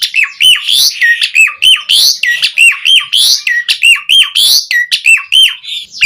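Asian pied starling singing loudly: a fast run of hooked, falling notes, about four a second, mixed with high chattering.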